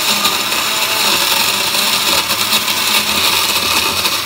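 Countertop glass blender running steadily at speed, grinding blue crab bodies and shells into a paste.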